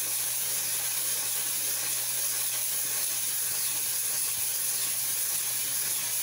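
Aluminium cylinder head of a Honda GX200-clone engine rubbed in circles by hand over sandpaper on a flat surface: a steady, unbroken gritty hiss of sanding that takes metal off the head's gasket face to mill it flat and down.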